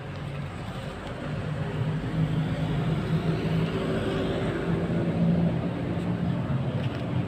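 A motor engine's steady hum, growing louder over the first two seconds and then holding.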